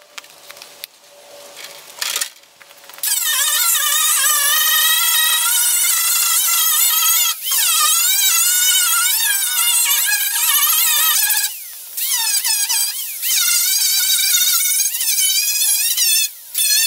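Small handheld power grinder with a cut-off wheel, worked against the sheet metal of a 1964 Ford Galaxie's rusted quarter panel: a loud high whine with a hiss, its pitch wavering as the wheel bears on the metal. It starts about three seconds in after a few light knocks and stops briefly twice, the longer break a little past the middle.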